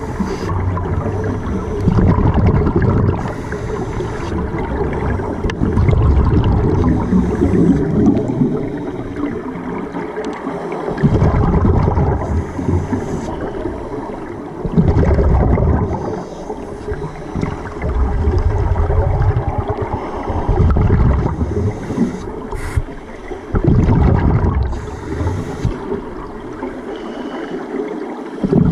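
Scuba regulator breathing heard underwater: every few seconds a low, rumbling gush of exhaled bubbles, with quieter stretches between breaths.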